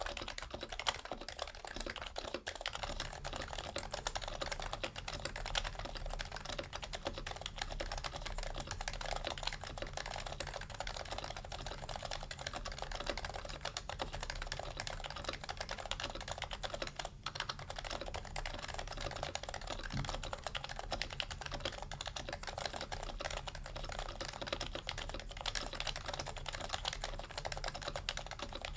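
Steady, continuous typing on an HHKB Professional Hybrid Type-S keyboard, its Topre electrostatic-capacitive switches with 45 g rubber domes and stock keycaps giving a dense run of quick, muted keystrokes.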